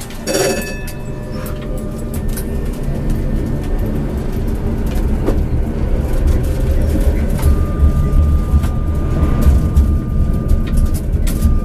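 Tram running on its rails, heard from the driver's cab as it gathers speed: a low rumble growing steadily louder, scattered with short clicks, and from about halfway a steady high whine. A brief ringing tone sounds right at the start.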